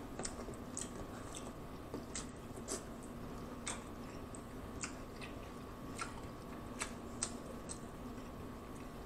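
A person chewing a mouthful of baked mostaccioli pasta close to the microphone: soft, wet mouth clicks every half second or so, over a faint steady hum.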